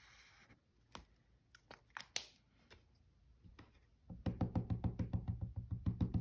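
A few scattered light clicks and knocks of supplies being handled, then about four seconds in a fast run of knocks, about ten a second for two seconds: an ink pad being dabbed rapidly onto a clear rubber stamp on its acrylic block to ink it.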